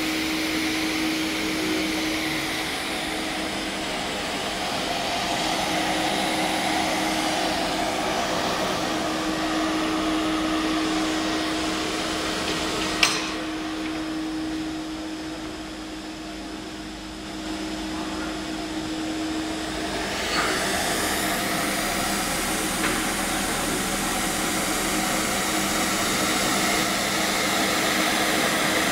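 Semi-automatic squeegee sharpener running: its grinding-wheel motor and dust-extraction suction give a steady whirring hiss over a steady hum as the grinding head travels along the polyurethane squeegee blade. A sharp click comes about halfway through, after which the hiss thins for several seconds before returning.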